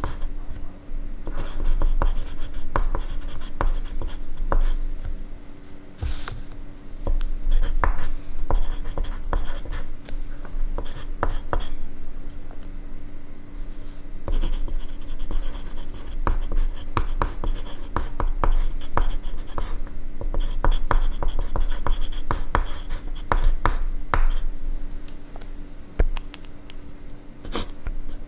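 Graphite pencil writing on paper: a run of irregular scratchy strokes and light taps, with a few sharper, louder strokes along the way.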